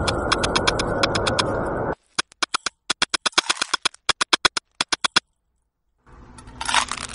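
Electronic noise music: a dense wall of noise laced with rapid clicks cuts off suddenly about two seconds in. A run of sharp, unevenly spaced clicks follows, then a brief silence, and a hissing texture swells up near the end.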